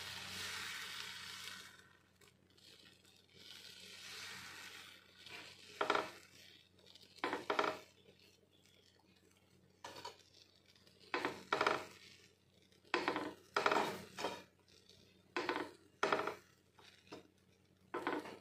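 Steel ladle scraping and swishing over dosa batter on a non-stick tawa as the batter is spread in circles: a dozen or so short strokes, starting about five seconds in and coming every second or so. A steady hiss runs through the first two seconds.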